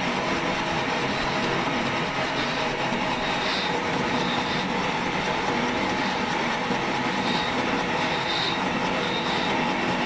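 Sawmill saw running steadily through dry wood, with the trolley carriage carrying the log.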